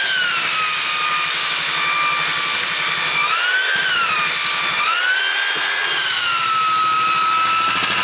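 Porter-Cable belt sander running against wood, sanding proud box-joint pins flush on a cabinet corner. Its steady whine rises and falls in pitch twice, about three and five seconds in.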